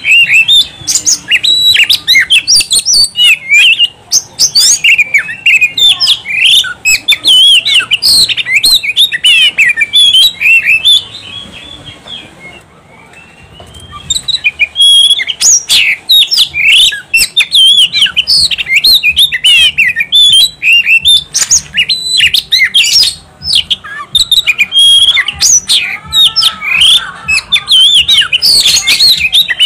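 Male Oriental magpie-robin (kacer) singing in full voice: a fast, continuous run of varied whistles and chirps. The song breaks off for about three seconds roughly eleven seconds in, then resumes.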